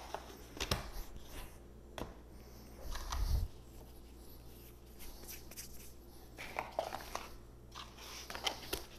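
Scattered light clicks and knocks of thin plastic deli containers and their snap-on lids being handled and set down on a stone countertop, with a soft low thump a little past three seconds in.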